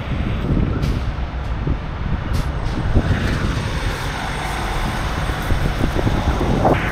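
Low rumble of a semi-truck's diesel engine and truck-stop traffic, with wind buffeting the microphone.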